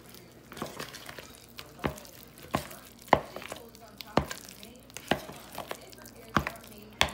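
A fork knocking and scraping against a plastic mixing bowl while stirring a stiff dumpling dough, with irregular sharp knocks about one or two a second.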